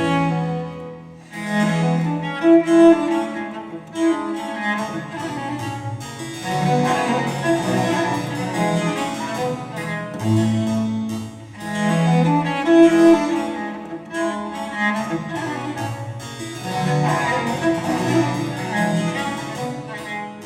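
Instrumental music with no singing, played back through a hi-fi floorstanding loudspeaker and recorded in the room; sustained pitched notes move in phrases, with brief dips in level about four and fourteen seconds in.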